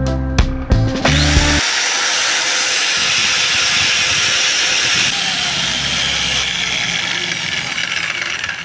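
5-inch angle grinder running steadily at speed, starting about a second in, over the end of some background music.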